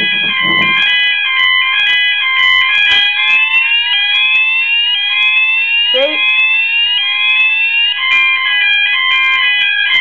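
Fire alarm sounders on a small alarm system going off together: a two-tone pattern alternating about twice a second, joined through the middle by a repeating rising sweep tone.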